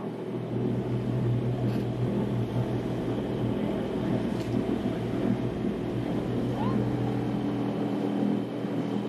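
A sailboat's inboard engine running steadily while motoring, a low, even hum.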